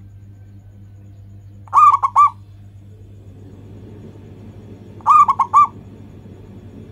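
Zebra dove (perkutut) cooing: two short phrases of three or four quick, bubbling notes, about three seconds apart, over a steady low hum.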